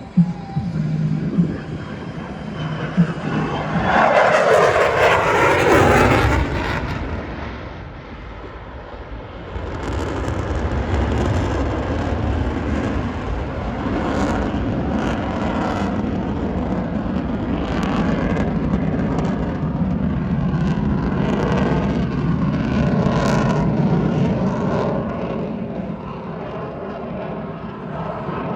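Airplane flying past at an air show: a loud pass about four seconds in that falls in pitch as it goes by, then a steady engine rumble.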